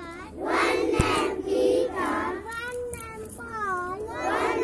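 Young children singing an action rhyme: a single child's voice leads while a group of schoolchildren chant along in unison. There is one sharp knock about a second in.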